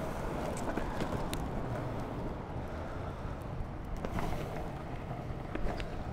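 Longboard wheels rolling over a rough tarmac path, a steady rumble, with wind buffeting the microphone and a few short clicks.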